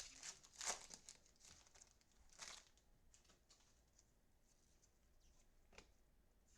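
Faint handling noise of trading cards being flipped and slid: a few short papery swishes early on and again about two and a half seconds in, and a light tap near the end, over near silence.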